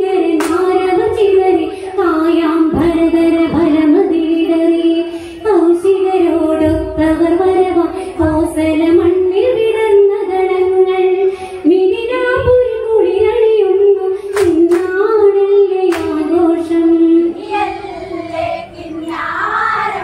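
A woman's voice singing an Onamkali folk song in Malayalam, one continuous melody line, with a few sharp clicks about half a second in and again near three quarters of the way through.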